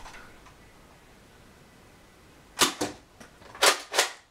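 Nerf Longstrike CS-6 spring-powered dart blaster being fired: after a quiet stretch, a sharp snap about two and a half seconds in, followed a fifth of a second later by a second knock. Two more sharp clacks come near the end, about a third of a second apart.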